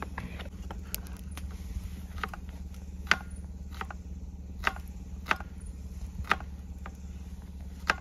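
A handful of sharp, separate clicks or pops, spaced irregularly, over a steady low hum.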